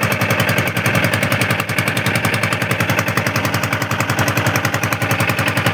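A small engine running steadily with a fast, even putter of about ten beats a second.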